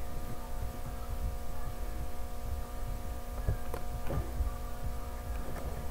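Room tone: a steady electrical hum with a low rumble beneath it, and a few faint knocks about three and a half to four seconds in.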